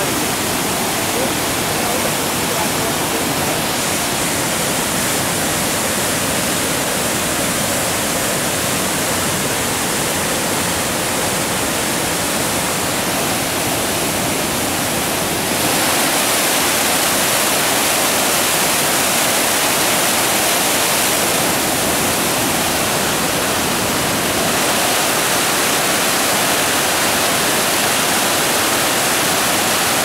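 River in full flood, muddy water churning through rapids: a loud, steady roar of rushing water. It gets a little louder and brighter about halfway through.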